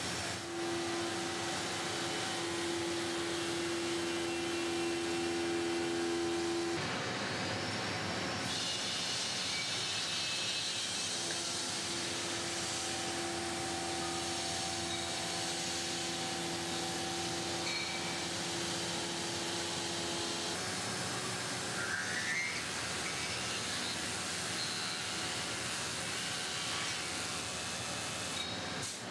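Machine tool cutting and threading the neck of an aluminium scuba cylinder: a steady hiss with a steady whine that stops about seven seconds in and comes back for a stretch in the middle.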